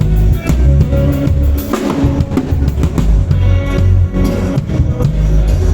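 Live band playing loudly during a sound check: a full drum kit with heavy bass drum and snare, with bass and guitar.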